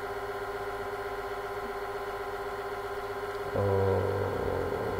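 Steady background hum with several fixed tones and a little hiss: the recording's own noise floor. About three and a half seconds in, a man's voice makes a short wordless sound lasting about a second.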